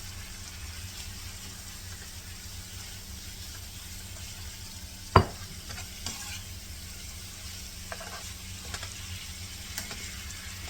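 Chicken strips, bell peppers and onions sizzling in a skillet while being stirred, with a utensil scraping and tapping the pan. One sharp clank of the utensil on the pan about halfway through, then a few lighter taps.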